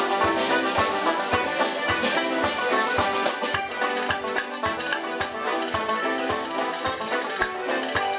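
Live Irish traditional music played on instruments, with busy melody notes over a steady, regular low beat.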